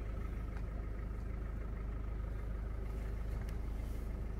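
Car engine running steadily, heard from inside the cabin as a low, even hum.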